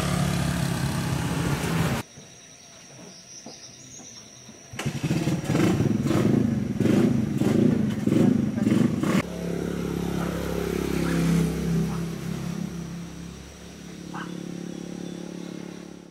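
Motorbike engines running, broken up by sudden cuts: the engine sound drops away about two seconds in and comes back louder and uneven, then runs steadily until it fades out at the end.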